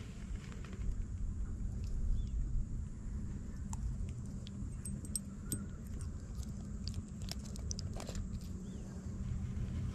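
Handling noise while a snakehead is unhooked: a scatter of light clicks and rattles as the spinner lure's hooks and blade are worked free of the fish's mouth, thickest in the second half, over a steady low rumble.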